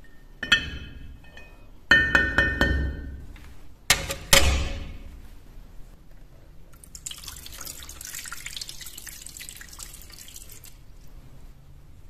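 Rusty steel knife pieces knocking and clinking against a glass jar as they are handled in and out of the liquid, several sharp knocks with the glass ringing briefly, the loudest about four seconds in. Later a steady hiss runs for about four seconds.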